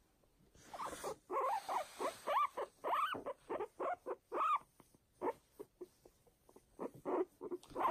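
A guinea pig squeaking while being stroked: a quick run of short squeaks that rise and fall in pitch, thick for the first few seconds, then coming more sparsely.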